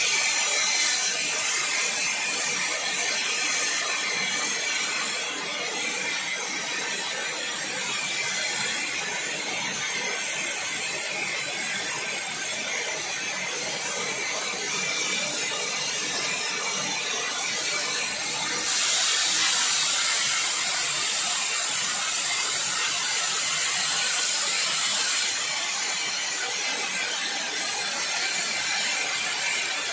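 Lit oxy-propane cutting torch (R2-01 type) burning with a steady rough hiss, which grows louder and brighter for about six seconds near two-thirds of the way through.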